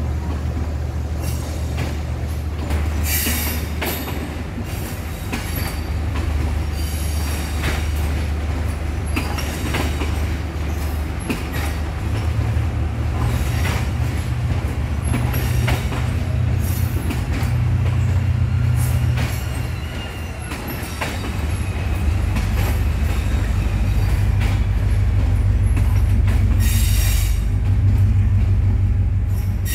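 Diesel passenger train passing slowly underneath: a steady low engine rumble with its wheels clicking over rail joints and briefly squealing. The rumble grows louder in the last third as a power car draws near.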